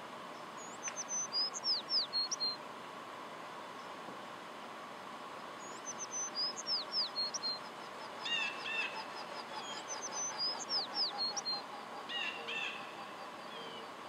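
A sparrow singing the same short, high song three times, each phrase made of a few thin notes followed by quick downward slurs. A shorter, lower call sounds twice in the gaps between songs.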